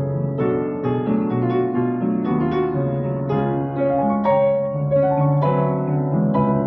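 Solo piano playing, with a new note or chord struck several times a second.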